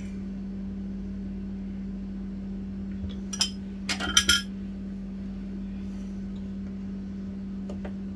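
A few sharp clinks of ceramic bowls being moved and set down, clustered about three to four seconds in, with one faint click near the end, over a steady low hum.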